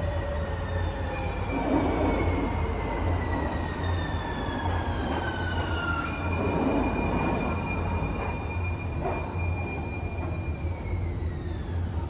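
A Siemens S200 light rail vehicle pulls into an underground station. It runs with a steady low rumble of wheels on rail, and several thin whining tones fall slowly in pitch as it slows, with more dropping near the end as it comes to a stop.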